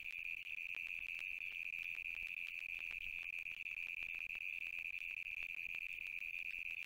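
A steady high-pitched electronic whine in the live cam's audio feed, one unwavering tone with faint crackling clicks.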